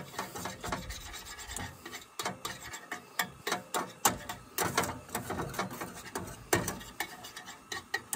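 Wire whisk scraping and clicking against a stainless steel skillet in quick, irregular strokes, whisking a thickening egg mixture.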